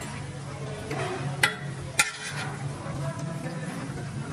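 Metal spoon stirring chunks of meat in broth in a cooking pot, with two sharp clinks of metal on the pot about a second and a half and two seconds in, over a steady low hum.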